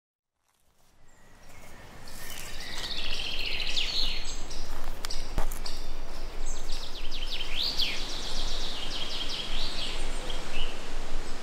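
Birds chirping in quick rising and falling notes over a steady outdoor background hiss, fading in from silence over the first two seconds. A single sharp click about five seconds in.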